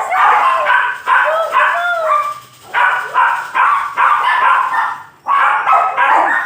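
A dog whining and yelping over and over, about eight drawn-out cries in quick succession.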